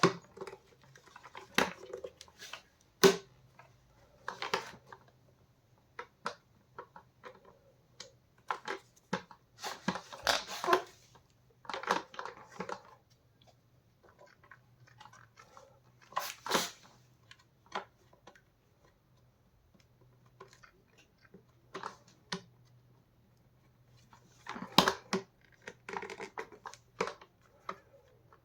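Plastic parts of a Vax Mach Air upright vacuum's brush-bar housing being handled and fitted: irregular clicks, knocks and short scraping rustles with pauses between.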